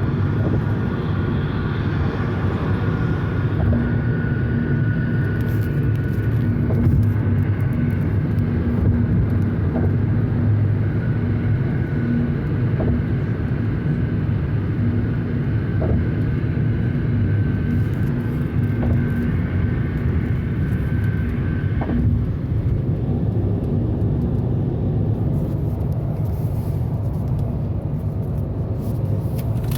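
Steady road and engine noise heard inside a car's cabin while cruising on a highway, a continuous low rumble. A faint steady whine runs along with it and stops about two-thirds of the way through.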